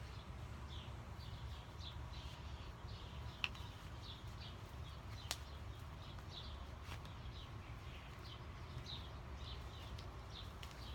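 A small bird chirping over and over, short high chirps about one or two a second, over a low steady background rumble. Two faint clicks come partway through.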